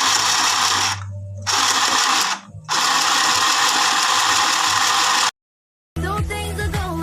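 Mini portable sewing machine running and stitching with a loud, fast mechanical rattle, stopping briefly twice and then cutting off. Music begins near the end.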